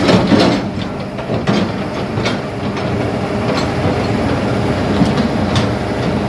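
Kobelco SK200 hydraulic excavator's diesel engine running steadily, with irregular metallic clanks and knocks over it, the loudest just as it begins.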